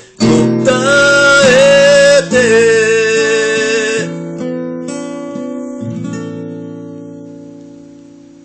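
Acoustic steel-string guitar strummed under a man singing one long held note. About four seconds in the singing and strumming stop, and the last guitar chord rings on and slowly fades away.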